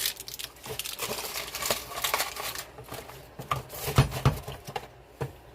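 Crinkling and rustling of an instant vanilla pudding mix packet being handled and emptied into the cake mix, then a few knocks, the loudest a pair of thumps about four seconds in.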